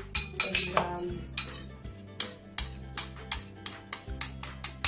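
A metal spoon tapping and clinking against a bowl, many quick sharp taps at about three or four a second, as ground breadcrumbs are knocked out into a food processor. Background music with a steady bass line plays underneath.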